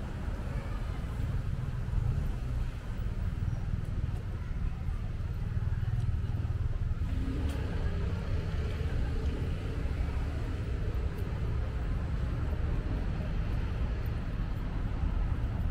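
Outdoor city street ambience: a steady low rumble of distant traffic with a faint urban hum above it.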